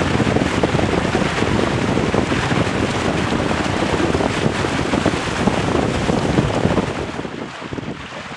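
Wind buffeting the microphone over the rush and splash of a Weta trimaran's hull and float slicing through choppy water at speed. The noise drops noticeably about seven seconds in.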